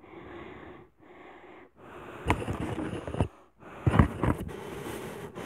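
A person breathing heavily in four long breaths, with two short knocks about two and four seconds in.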